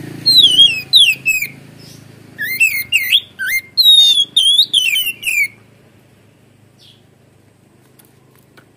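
Oriental magpie-robin singing: rapid, loud whistled notes sweeping up and down. There is a short run just after the start, then a longer run of about three seconds, and then the song stops.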